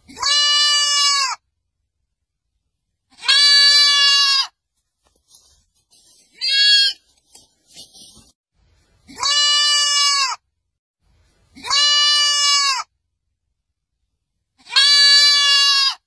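Goat kids bleating: six loud, steady-pitched bleats of about a second each, evenly spaced, with one shorter, higher bleat about six and a half seconds in.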